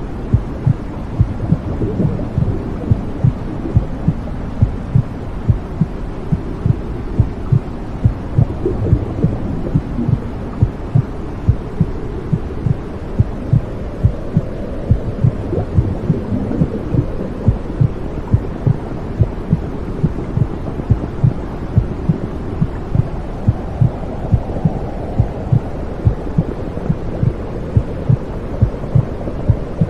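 Womb sound: a mother's heartbeat thumping steadily, about once a second, over a continuous low whooshing rumble of blood flow.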